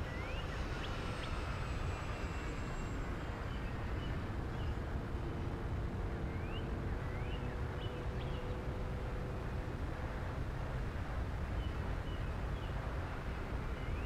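Steady low rush of airflow over the onboard camera of an electric RC Mustang in flight, with a faint steady hum underneath and a few short rising chirps.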